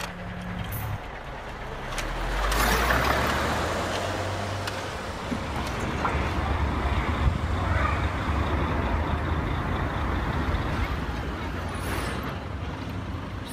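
A motor vehicle's engine running with a low, steady rumble that swells about two seconds in and then holds.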